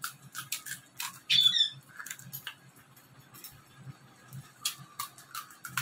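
Irregular light clicks and taps of hands stuffing gupchup: crisp puris being cracked open and potato filling spooned from a steel bowl. There is one brief high squeak about a second and a half in.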